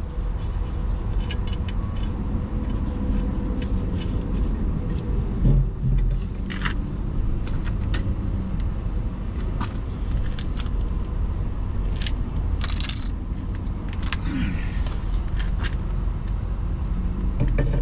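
Loose metal hardware clinking and jingling in short scattered clicks, with a brighter rattle about thirteen seconds in, as nuts are worked onto a truck air-suspension airbag's mounting studs. Under it runs a steady low rumble.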